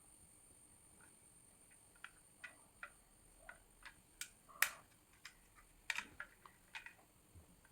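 Light, irregular clicks and taps of a small diecast model and its plastic packaging being handled, about a dozen in all, one sharper click near the middle.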